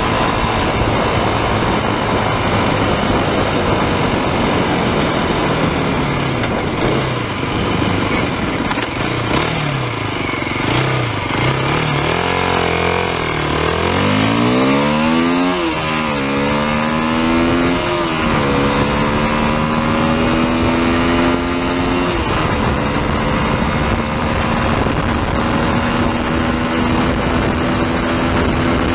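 Aprilia RX125 single-cylinder engine accelerating hard through the gears. Its pitch climbs and drops sharply at each gear change in the middle of the clip, then holds and climbs slowly in top gear. Heavy wind rush from riding at speed runs over everything.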